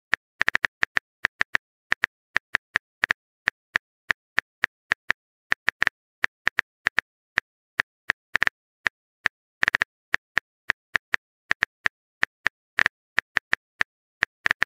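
Phone keyboard typing sound effect: a long, uneven run of short, light taps, about four a second, as a text message is typed out.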